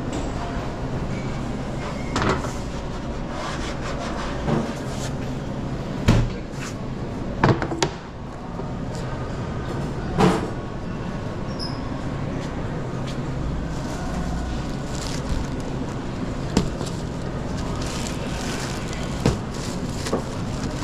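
Steady low hum of kitchen equipment with scattered short knocks and clatters of work at a pizza counter, the loudest about six to ten seconds in.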